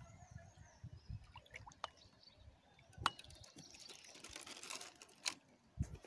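Faint water splashing and dripping as a hooked mandi catfish is pulled from the surface and lifted clear of the river, with a few sharp clicks about three, five and six seconds in.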